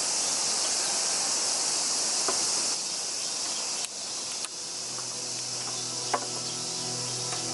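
Insects chirring steadily in a dense, high-pitched hiss, with a few faint ticks about halfway through.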